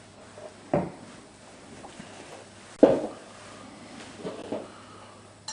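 Two short knocks from dishes or kitchen items being handled, about two seconds apart with the second louder, then a couple of fainter clicks.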